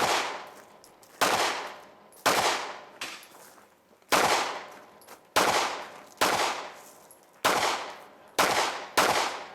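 Pistol-caliber carbine fired in single shots, about nine in quick succession at uneven intervals of roughly a second, each crack trailing off in a long echo.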